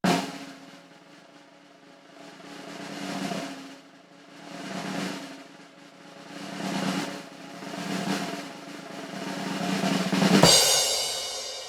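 Snare drum: a sharp hit, then a series of rolls that swell and fade, and a long crescendo roll ending in a loud accent about ten seconds in, after which a cymbal rings out and fades.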